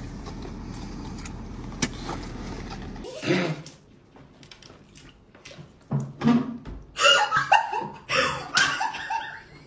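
A steady low engine hum heard inside a vehicle's cab for about three seconds, with a click or two. Then two women laugh hard in several loud bursts, most of them in the last few seconds.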